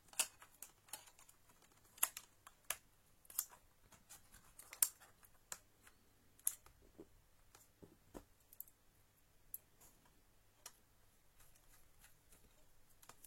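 Irregular sharp clicks and light taps of small laptop parts and a hand tool being handled while a laptop's drive and its lock and cover are fitted back in place.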